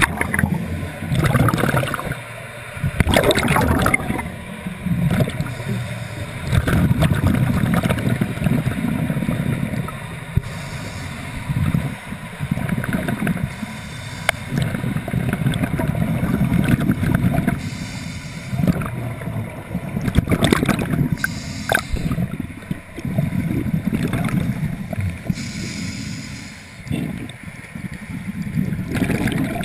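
A scuba diver breathing through a regulator: the hiss of each inhalation and the gush of exhaled bubbles, repeating every few seconds.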